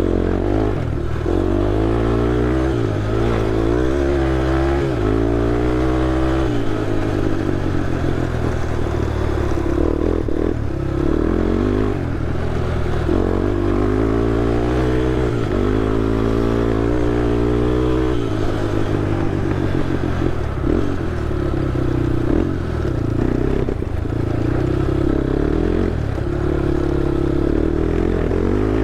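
Honda TRX ATV engine running while trail riding, its pitch repeatedly rising and falling as the throttle is worked on and off.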